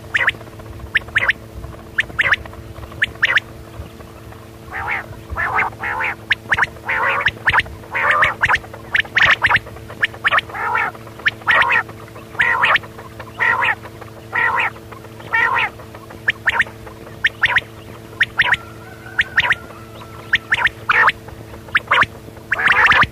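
Quail calling over and over: short, sharp notes in quick bursts of a few at a time, about a second apart, with a brief lull toward the end. A steady low hum runs underneath.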